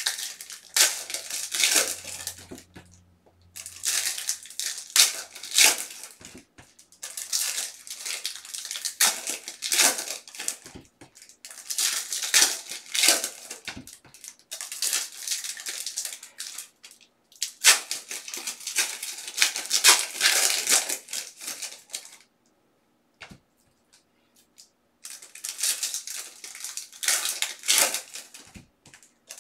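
Foil trading card pack wrappers crinkling and tearing as packs are ripped open, with the cards shuffled and slid against each other. The sound comes in bursts with short pauses, and a near-silent gap of about two seconds falls roughly three-quarters of the way in.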